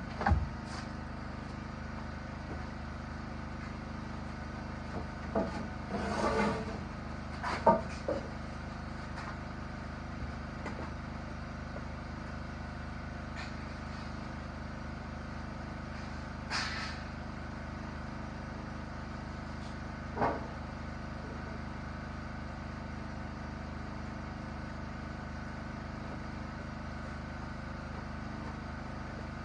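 A steady machine hum holding several tones throughout, with a few knocks and clatters of tools or materials. The clatters come about a second in, in a cluster about six to eight seconds in, and once each near seventeen and twenty seconds.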